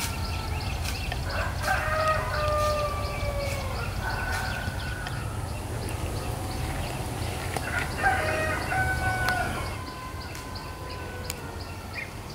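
Roosters crowing: long, drawn-out crows that sag slightly in pitch, one about two seconds in and another about eight seconds in, over a low rumble that fades near the end.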